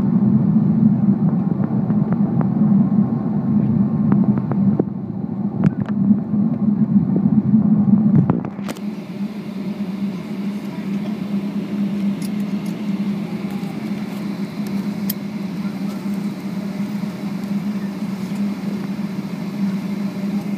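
Cabin noise inside a Boeing 757-200 taxiing: a steady hum of the idling engines and the air system, heard from a seat over the wing. About eight seconds in, the low hum eases and a broader hiss comes up, with a few faint clicks.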